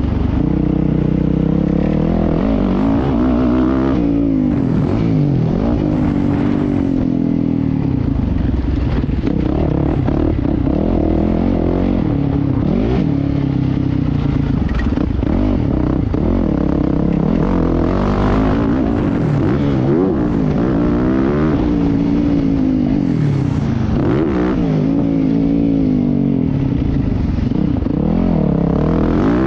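Motocross bike engine revving up and falling back again and again as the rider accelerates along the dirt track and backs off for the turns, heard close up from the rider's helmet camera.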